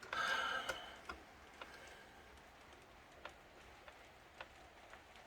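A short squeak of laptop plastic being worked apart in the first second, then a scatter of faint clicks and ticks as small parts are handled.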